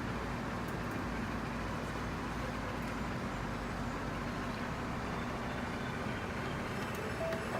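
Steady background noise with a faint low hum and no distinct events.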